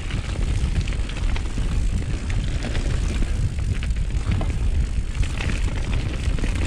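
Mountain bike riding fast down a dirt trail: steady wind rumble on the microphone with tyre noise and many quick rattling clicks from the bike.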